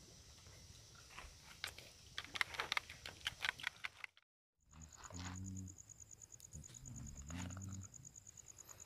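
A spoon clicks and scrapes in a plastic bowl in quick, sharp strokes. After a short silent gap, an insect such as a cricket chirrs in a fast, even pulse, over a low hum that comes and goes.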